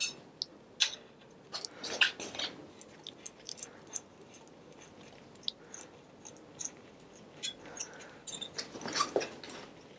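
Hand tools clicking and clinking against the frame parts of an old mountain bike being stripped down around the crank and front derailleur. The small metallic clicks come irregularly, with a few louder ones about two seconds in and again near nine seconds.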